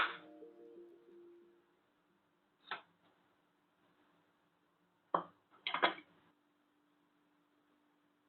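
Background music dying away, followed by a few sharp taps: one about two and a half seconds in, then a small cluster around five to six seconds.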